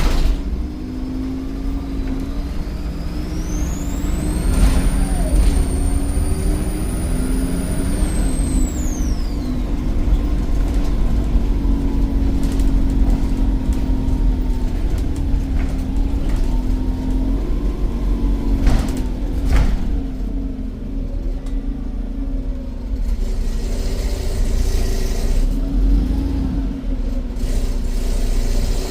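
Volvo D7E 7.1-litre diesel of a Volvo B7RLE bus under way, its turbocharger whistle rising to a high, held note for several seconds, then falling away. Low engine drone throughout, with a few sharp knocks and a spell of air hiss later on.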